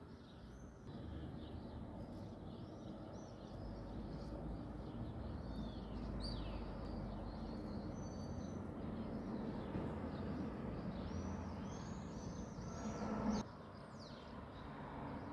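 Small songbirds chirping and twittering, many short calls overlapping, over a steady low rumbling background noise that rises about a second in and cuts off abruptly near the end.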